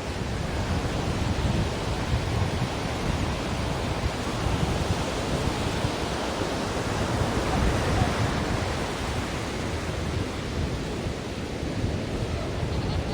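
Ocean waves: a continuous rushing surf that swells a little about eight seconds in.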